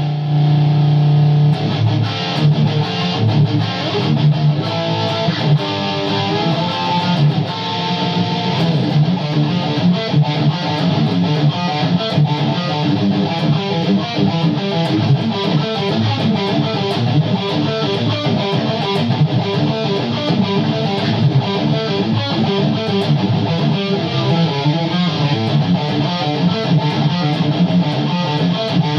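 Distorted electric guitar with DiMarzio Titan pickups, played through a Line 6 Helix LT in a djent tone and picked up by a camera's built-in microphone. A chord rings for about a second and a half, then fast, tightly picked riffing and chords follow.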